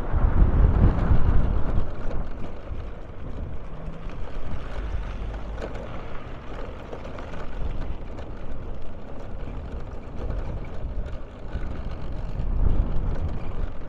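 Road and engine noise of a vehicle driving along a town street: a steady low rumble that swells in the first couple of seconds and again shortly before the end.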